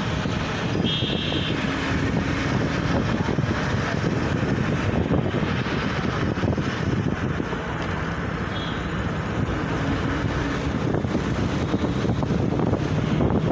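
Steady road-traffic rumble with wind buffeting the microphone, and a short high beep about a second in.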